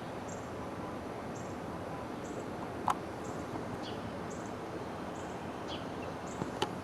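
Outdoor ambience: a steady background rush with a bird's short high chirp repeating about once a second and a couple of brief falling calls. Two sharp clicks, about three seconds in and near the end, are the loudest sounds.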